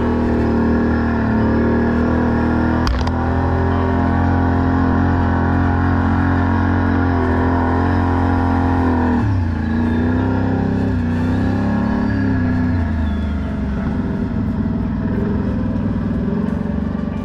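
Can-Am ATV engine running under steady throttle, then easing off about nine seconds in with a drop in pitch and running unevenly after that. A single sharp knock sounds about three seconds in.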